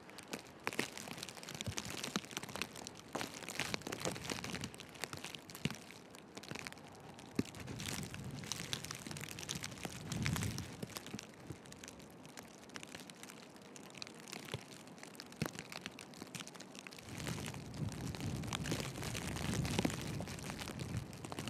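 Footsteps crunching in fresh snow, irregular crackles throughout, with gusts of wind rumbling on the microphone about ten seconds in and again near the end.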